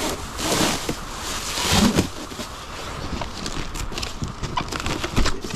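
Cardboard cases of food being shifted and set down while digging through a pallet: a run of irregular knocks, thuds and scrapes, loudest about two seconds in, over a steady hiss.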